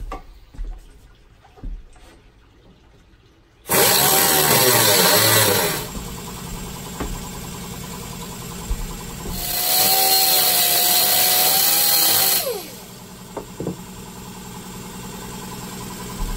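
Pneumatic cut-off tool run up twice in short bursts, a high whine over a loud rush of air, the second burst winding down with a falling pitch as the wheel spins down. A quieter, steady running sound carries on between and after the bursts.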